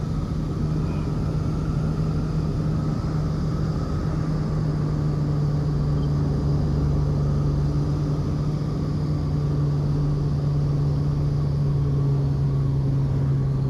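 The twin engines of a de Havilland Dragon Rapide biplane, heard from inside the passenger cabin as a steady drone. Its pitch sinks slowly as the aircraft lands and rolls along the runway.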